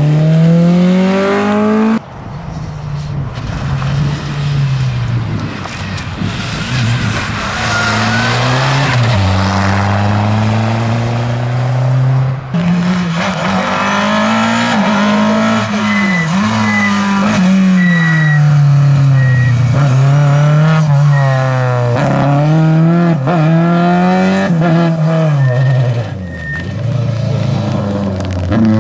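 Rally car engines at hard throttle, the pitch repeatedly climbing and dropping back through gear changes, with two abrupt breaks in the sound.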